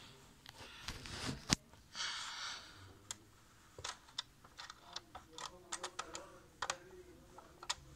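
Light, irregular plastic clicks and taps from fingers handling a toy model bus, with one sharper click about one and a half seconds in and a short rustle about two seconds in.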